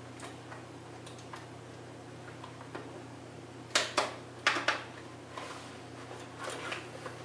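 Small clicks and knocks from handling a keyboard and plugging in its USB cable, with a quick cluster of five sharp clicks about four seconds in.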